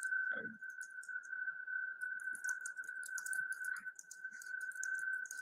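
A steady, high-pitched electronic whine holding one pitch, with faint scattered ticks above it and a brief murmur of voice just after the start.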